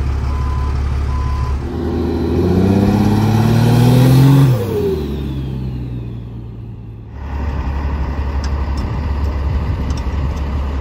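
Heavy truck engines idling low, with a beep repeating about every half second at first; then a big off-road wrecker truck accelerates past, its engine climbing in pitch and dropping as it goes by, and the steady idle of a heavy truck returns.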